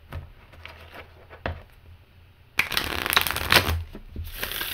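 A new deck of small tarot cards being shuffled: light scattered taps as the cards are worked between the hands, then, about two and a half seconds in, a loud rapid riffle as the halves are flicked together on the table, with a shorter burst near the end.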